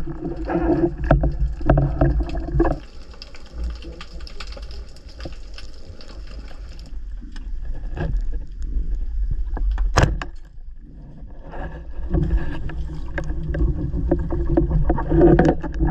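Water noise picked up by a diver's camera, a steady low rumble of water and movement, with one sharp click about ten seconds in.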